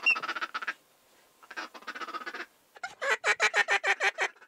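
Hand-held, mouth-blown waterfowl call worked in quick, evenly spaced notes, calling to birds to bring them in over the decoys. Two short runs, then a louder run of about seven notes a second near the end.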